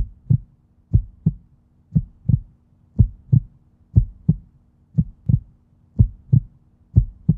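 Heartbeat sound effect: paired low thumps (lub-dub) repeating about once a second, eight beats in all, over a faint steady low hum.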